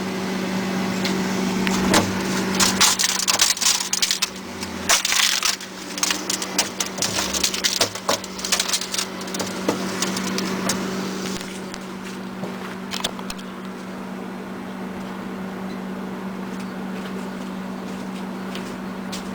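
Crunching and crackling of loosened ice and frost being wiped and scraped out of a freezer by hand with towels, the crackling dying away about eleven seconds in. Under it runs a steady hum.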